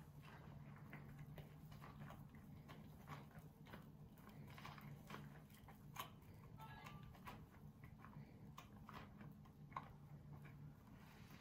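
Near silence: faint scattered clicks and soft rubbing of an applicator brush and rubber-gloved hands working creamy relaxer through hair, with two sharper clicks about six and ten seconds in. A steady low hum runs underneath.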